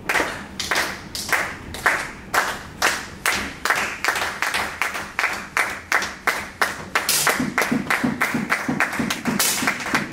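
Spectators clapping in a steady rhythm, about two claps a second, with heavier, deeper claps joining in over the last few seconds.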